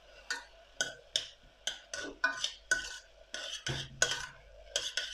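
A spoon stirring sautéed onions in a stainless steel pot, scraping against the pot's bottom and sides in a quick, irregular series of strokes, about two a second.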